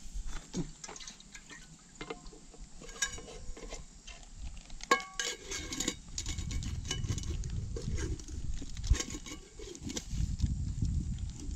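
Metal camp cookware being handled: a lid and pot clink together several times with short metallic rings, the loudest about five seconds in, over low rumbling handling noise in the second half.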